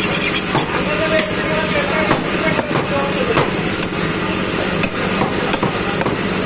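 A butcher's large curved knife slicing beef and knocking irregularly against a wooden log chopping block, over a steady background of voices.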